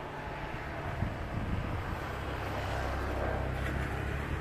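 Single-engine turboprop of a KAI KT-1 Woongbi trainer running with its propeller turning as the aircraft rolls along the runway, a steady low hum that grows gradually louder.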